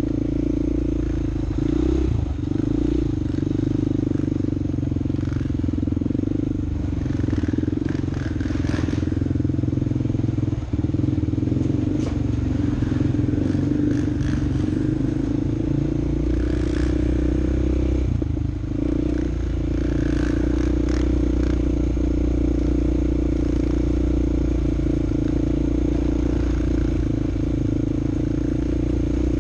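A vehicle engine running at a steady speed, holding one even low tone throughout, with a brief dip about two-thirds of the way through.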